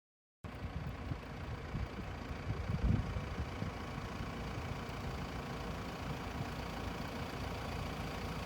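Vehicle engine running in a low, steady rumble, starting about half a second in, with a brief louder swell about three seconds in.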